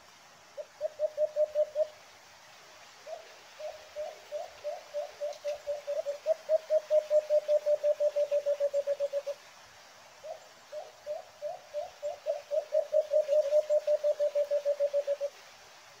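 White-eared brown dove (alimokon) calling: runs of short, low hooting notes that start slow and quiet, then speed up and grow louder. There are three runs, with short pauses between them.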